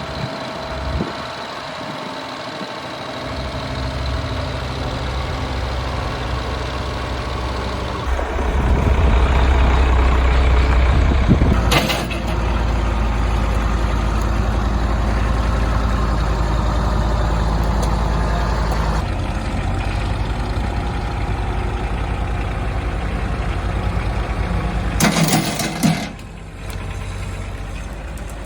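Kubota diesel tractor engines running and working under load while lifting a heavy log slab. The engine note shifts several times and is louder from about eight to twelve seconds in. There are two short, loud bursts of noise, one about twelve seconds in and one near the end.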